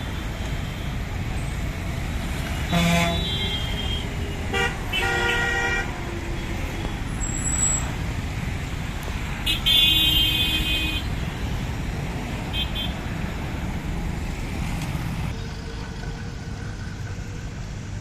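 Road traffic noise with vehicle horns tooting several times, the longest blast about ten seconds in.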